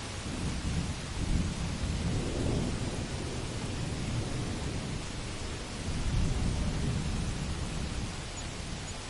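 Thunder rumbling low over steady heavy rain. The rumble swells about a second in, eases off, then swells again around six seconds before fading.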